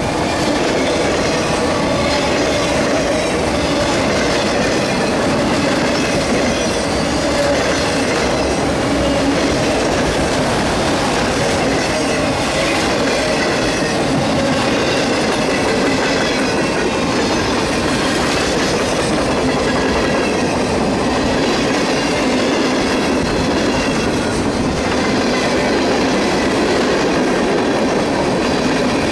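Freight train autorack and covered hopper cars rolling steadily past close by: steel wheels clattering over the rail joints under a constant rumble, with a faint wavering wheel squeal on top.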